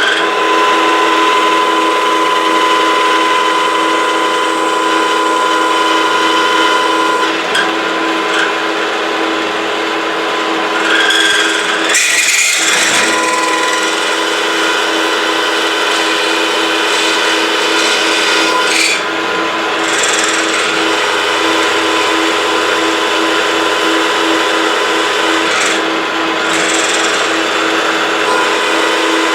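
Milling machine cutting metal with a 3/4-inch high-speed-steel end mill at about 1780 rpm, hollowing out a pocket: a steady machine drone under a continuous rasping cutting noise. About 12 seconds in there is a brief, harsher burst of cutting noise.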